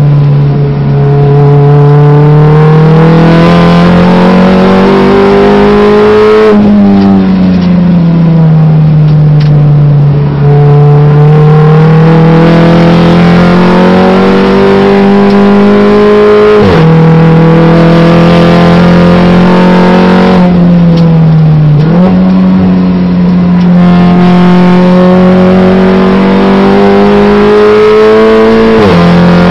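SEAT Cupra TCR race car's turbocharged four-cylinder engine at full racing effort, heard from inside the cockpit. Its pitch climbs steadily under acceleration and drops sharply at upshifts: about a fifth of the way in, a little past the middle, and near the end. It sinks more gradually twice as the car slows for corners.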